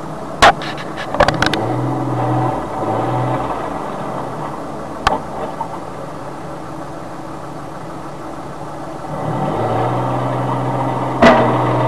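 Street traffic and engine noise heard from inside a car through a dashcam, with a low steady hum that comes and goes and several sharp knocks, the loudest about half a second in and near the end.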